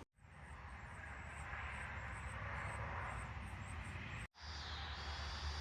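Faint steady outdoor background noise with a low rumble, broken off briefly about four seconds in.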